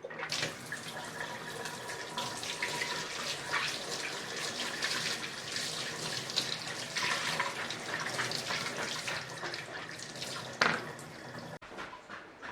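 Kitchen tap running steadily into the sink while pumpkin is rinsed under it, with small clatters and one sharp knock near the end. The water cuts off abruptly shortly before the end.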